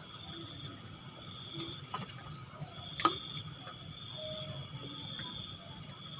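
Night-time insects chirring steadily at a high pitch, with a few short low notes and a sharp click about three seconds in.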